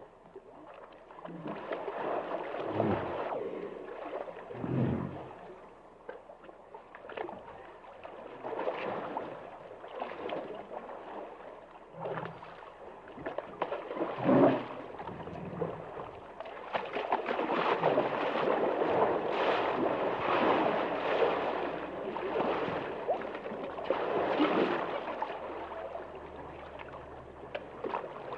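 Hippopotamus sounds in water: swelling, gurgling and sloshing water noise with a few short low grunts among it, fullest from about halfway through to near the end.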